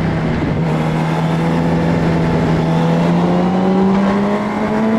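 2004 Yamaha R1's inline-four engine pulling under throttle, its pitch climbing slowly and steadily as the bike gains speed, with rushing wind noise.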